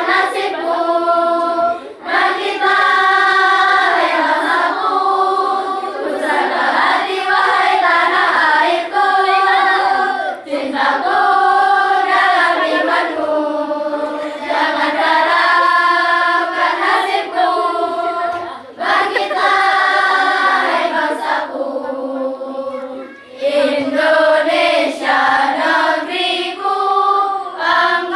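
A choir of girls singing a song together, with short breaks for breath between phrases.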